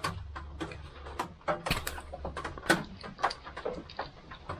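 Scattered small metal clicks and knocks as a tool works the retaining nut of a carburetor float bowl and gloved hands turn the bowl free on a Briggs & Stratton Vanguard 6 HP engine.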